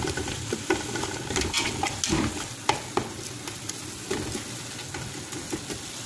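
Food frying in a little oil in a cooking pot, sizzling steadily, while a utensil stirs it and scrapes or taps against the pot about once a second.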